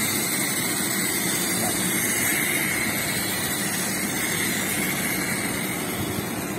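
Wind-up toy train's clockwork motor whirring steadily as the train runs around a plastic track.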